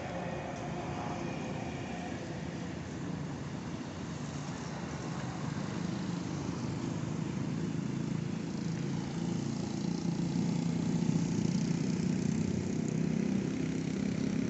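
Street traffic below: vehicle engines running and passing, a steady hum that grows louder in the second half.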